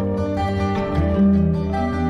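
Background music: plucked strings, like guitar, picking a slow melody over a steady bass.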